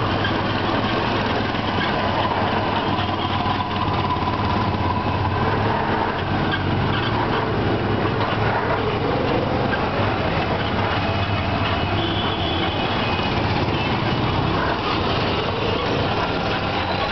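Auto-rickshaw engine running steadily as it drives along, heard from inside the open passenger cab, with a constant low drone.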